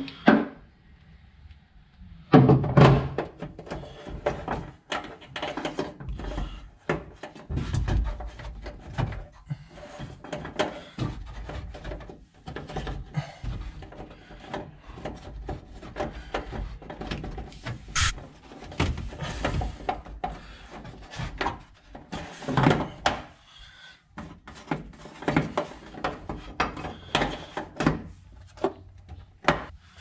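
Irregular knocks, clunks and clicks of hands working a heavy battery cable into place through a car, with louder clunks about two seconds in, near eight seconds and past twenty-two seconds. Music plays underneath.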